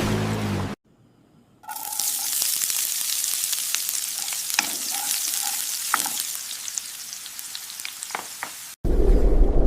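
Food frying in a hot pan: a steady high sizzle with scattered sharp crackles and pops, starting after a brief silence and cutting off abruptly near the end.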